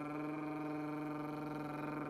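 A man's voice holding a rolled "trrr" tongue trill on one steady low pitch, the tongue fluttering rapidly: the frulato (flutter-tongue) exercise for flute, sustained for a count of four beats.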